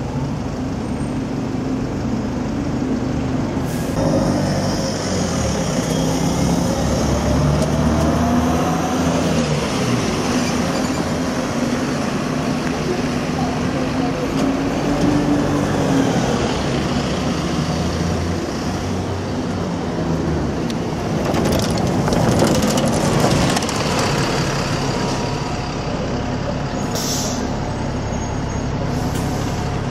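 City bus engine running and pulling away across a bus station, its pitch rising and falling as it accelerates, with a short hiss of air brakes near the end.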